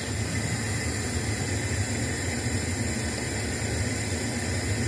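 Steady hiss with a low rumble from a steel pot of milk tea heating on a gas stove, just coming up to the boil.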